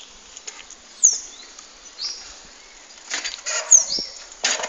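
BMX bike being worked through a trick on asphalt: tyre scuffs and rattling of the bike pick up about three seconds in, with a sharp knock near the end as the bike comes down. Short high chirps that slide downward sound every second or so.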